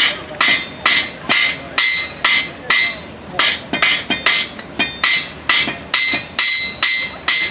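Blacksmith's hand hammer forging iron on an anvil: a steady run of ringing metal-on-metal blows, about two and a half a second.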